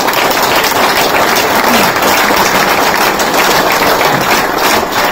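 Audience applauding: many hands clapping together, loud and steady.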